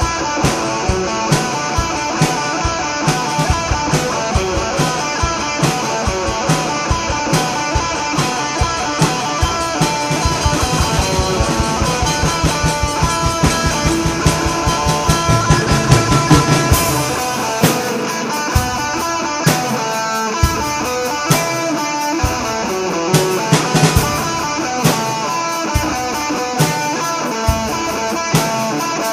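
Rock music played on electric guitar and drum kit, a steady driving beat under the guitar, swelling up to about 17 seconds in before the drums thin out.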